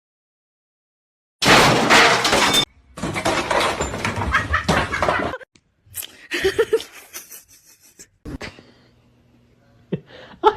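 A loud crash and clatter, like objects breaking or falling, starting suddenly about a second and a half in, followed by a longer stretch of clattering noise.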